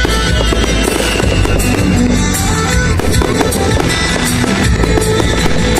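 Music playing, with fireworks bursting and crackling over it in many short sharp cracks and pops.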